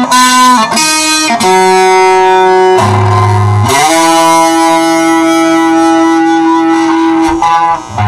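Electric guitar playing an original instrumental: a melodic line of single notes that slides up, a little under four seconds in, into a long held note of about three seconds, with a low bass note underneath just before the slide.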